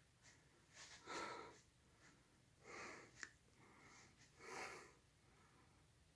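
Near silence, with four faint breaths and one small click; no motor sound can be made out.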